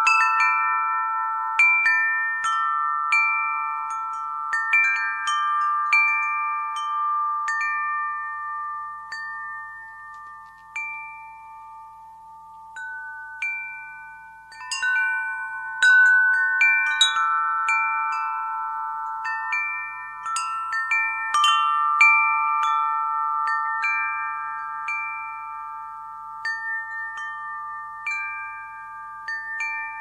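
Wind chimes ringing, struck at irregular moments, each strike leaving several clear pitches that ring on and fade slowly. The strikes thin out a little before the middle, then come in a fresh flurry around the middle and again later.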